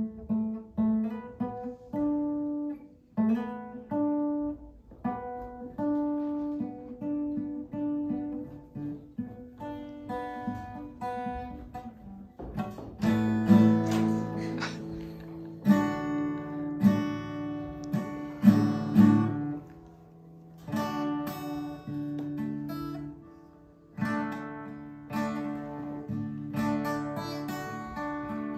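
Acoustic guitar played solo: picked single notes for about the first twelve seconds, then fuller, louder strummed chords.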